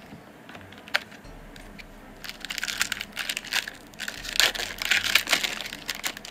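Foil trading-card pack wrapper crinkling and tearing as it is opened, with a single sharp click about a second in.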